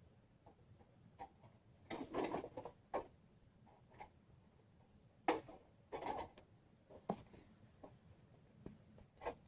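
Parts of a titanium camp woodstove and its stovepipe being handled: a few short clicks and light rattles at irregular intervals, the busiest about two seconds in and again around five to six seconds.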